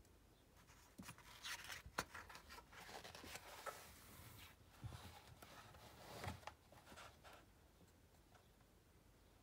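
Faint paper rustling and soft knocks as a large picture book is handled and its page turned, with one sharp tap about two seconds in; the handling stops a couple of seconds before the end.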